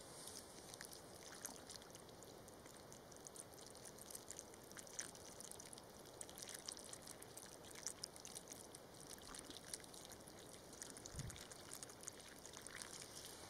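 Water poured from a plastic jug into a burrow in gravelly soil: a faint, steady trickle and splash into the hole as it floods.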